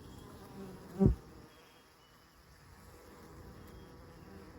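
Honeybees buzzing as they fly in and out of the hive entrance: faint hums that come and go, with one brief, much louder low sound about a second in.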